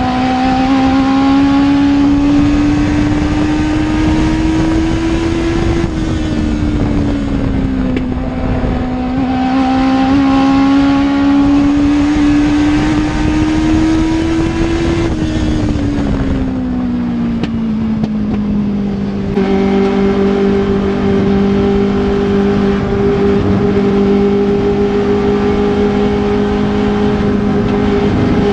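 A Legends race car's Yamaha motorcycle engine heard from inside the cockpit at racing speed. Its pitch climbs as it runs down the straightaway, drops as the driver lifts for the turn, climbs and drops once more, then holds nearly steady for the last third.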